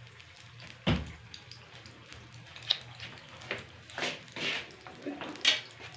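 Potato slices frying in hot ghee in a pan: a steady sizzle with scattered pops and crackles. A single dull knock comes about a second in.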